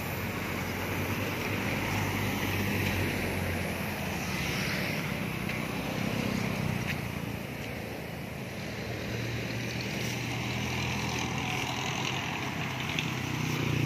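Motorcycles and other road traffic passing close by on a highway, small engines humming and tyres hissing, swelling several times as vehicles go by.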